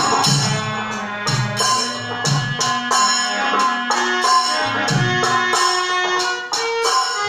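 Music from a Bhojpuri purvi song: a melody line of held notes stepping in pitch over a steady percussion beat.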